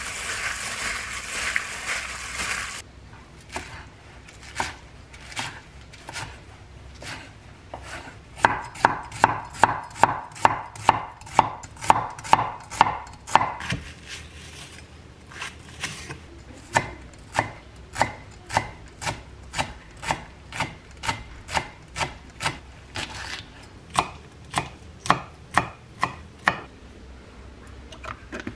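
A chef's knife chopping vegetables, green onion among them, on a wooden cutting board: a long series of sharp knocks, quicker at about three a second partway in and then steadier at about two a second. Before that, a short rustling hiss as marinated meat is squeezed and mixed by a plastic-gloved hand in a glass bowl.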